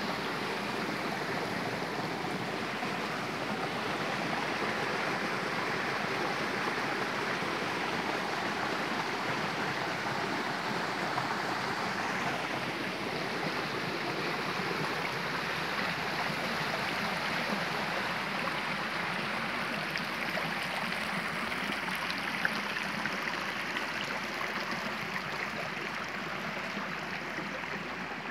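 A shallow creek flowing over a sandy, stony bed: a steady rushing water sound, with a single small click late on.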